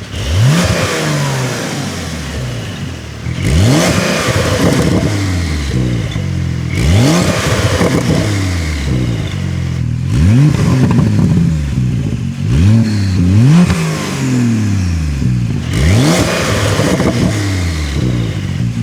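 Porsche 992 Carrera's twin-turbo flat-six revving through a Fabspeed valved Maxflo cat-back exhaust: about a dozen quick blips, each shooting up sharply in pitch and dropping back in steps toward idle. The blips come faster in the second half.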